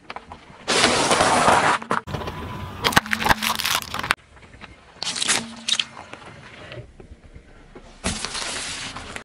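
Car tyre rolling over and crushing packaged food in several separate crushing bursts with crackling. The first is dry pasta crunching and cracking inside its plastic bag.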